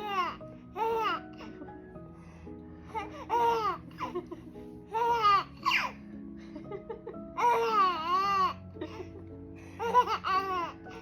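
A baby laughing in short high-pitched bursts, six or so in a row, the longest one near the middle, over soft background music.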